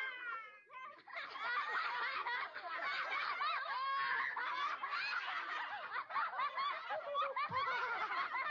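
A group of children laughing and snickering together, many high voices overlapping, in a vintage Hanna-Barbera library sound effect. It dips briefly in the first second, then the laughter runs on densely.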